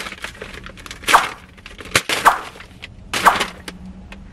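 Paper takeout bag crinkling and rustling as its seal is torn and the bag opened, and a plastic food container is lifted out: three loud crackly bursts about a second apart, with small clicks and taps between them.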